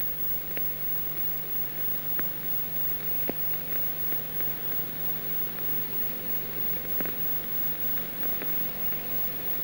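Steady hiss and low hum of an old film soundtrack, with occasional faint clicks. No music or narration.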